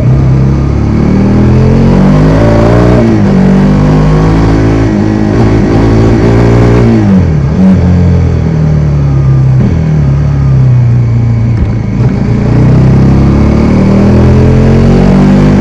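Bajaj Dominar 400's single-cylinder engine under way: its note climbs, drops sharply about three seconds in as a gear is changed, climbs again, falls off around the middle, then builds again toward the end.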